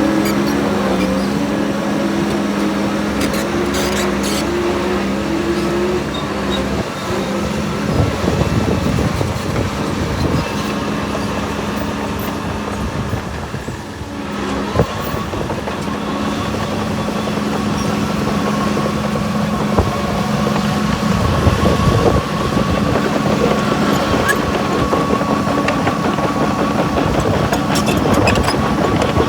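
Diesel engine of heavy earthmoving machinery running steadily under work. It dips briefly about halfway through, then carries on with a steady high whine over the engine.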